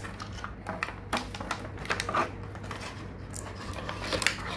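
Clear plastic toy packaging crinkling and rustling as it is pulled open by hand, with irregular small clicks and crackles.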